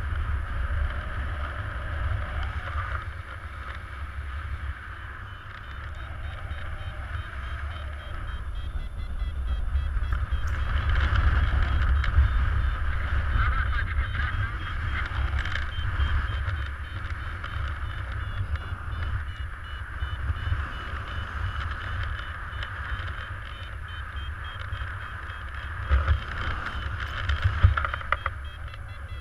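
Airflow buffeting the microphone of a pilot-mounted action camera in paraglider flight: a steady low rumble with a hiss above it, swelling about ten seconds in and with a few short gusts near the end.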